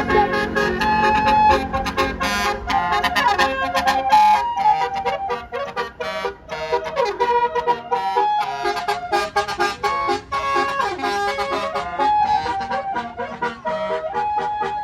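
Bus 'telolet' Basuri multi-tone musical horn playing a fast melody of quickly changing notes.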